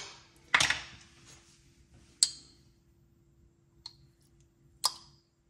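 Light kitchen handling sounds as minced garlic is taken from a glass jar and dropped into a Dutch oven: four separate short clicks and clinks a second or so apart, over a faint steady hum.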